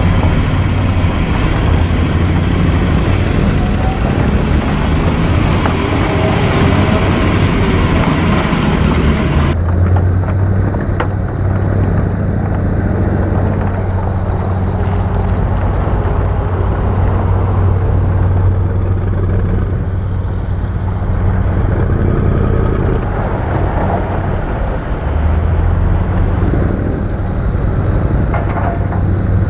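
Heavy diesel engine of construction machinery running steadily with a low drone. About a third of the way in, the higher clatter and hiss drop away abruptly, leaving mainly the engine.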